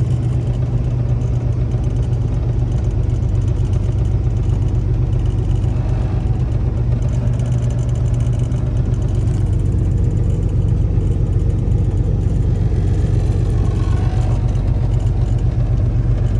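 Semi truck's diesel engine running steadily as the truck creeps along at low speed, heard from inside the cab as a constant low drone.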